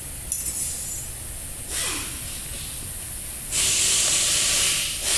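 Diesel and air spurting from the fuel return hose into a plastic jug while the fuel system is primed after a filter change, purging air from the new filter. It hisses briefly about two seconds in, then louder and longer near the end.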